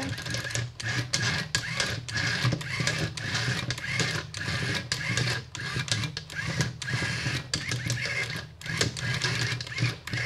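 Two small yellow 48:1 plastic gear motors of a robot car whirring as it drives and turns, starting and stopping often, with many short clicks throughout.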